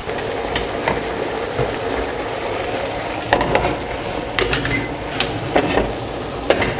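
Pork mince bolognese sauce simmering and sizzling steadily in a frying pan on a gas hob, with a few light knocks as the pan is handled in the second half.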